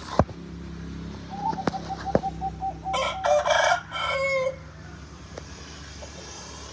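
Young Bangkok rooster crowing once, about three seconds in: a short, broken crow lasting about a second and a half. Before it comes a run of quick, short clucking notes, and there are a few sharp clicks in the first two seconds.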